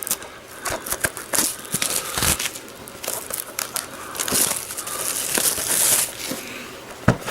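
Plastic shrink-wrap on a DVD box set crinkling and crackling as it is worked loose and peeled off by hand, with irregular clicks and a denser, louder stretch of crinkling past the middle.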